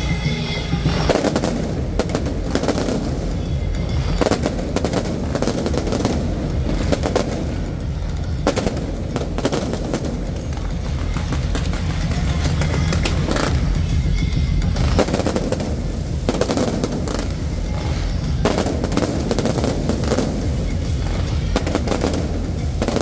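Aerial fireworks barrage going off: rapid, irregular volleys of bangs and crackles that come in waves, over a steady low rumble.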